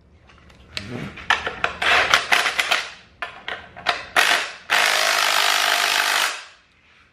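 Metal suspension parts rubbing and clicking as they are handled, then a cordless impact wrench spinning a bolt into a trailing-arm bushing bracket. It runs steadily for about a second and a half before stopping.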